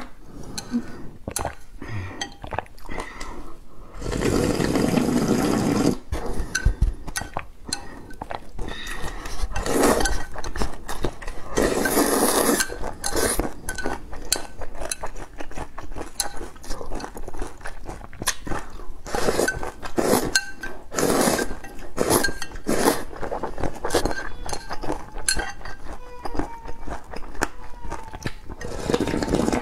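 Slurping broth from the rim of a ceramic bowl, in long sips of a second or two, between chopsticks clinking against the bowl and wet eating sounds.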